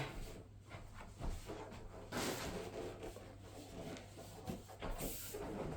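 Handling noises: light rubbing and small knocks, with a brief rustling swish about two seconds in and another near the end.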